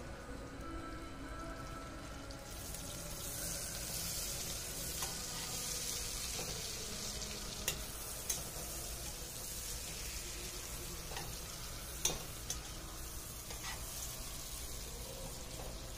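Sliced onion frying in hot oil in a steel pot: a steady sizzle that grows louder a couple of seconds in. A metal spoon stirring the onion clinks against the pot several times.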